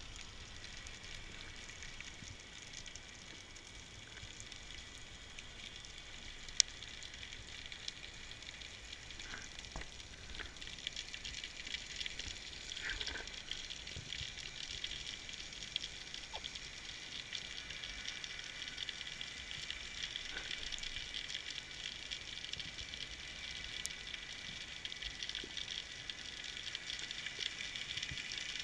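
Underwater crackling ambience of the sea: a steady sizzling haze of many fine clicks, with one sharper click about six and a half seconds in, getting slightly louder in the second half.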